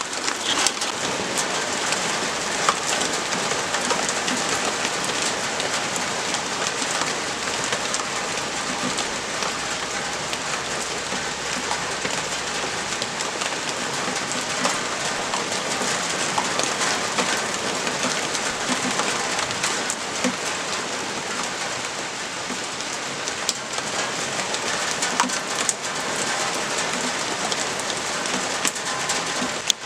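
Steady rain falling, a dense stream of small drop impacts with no break.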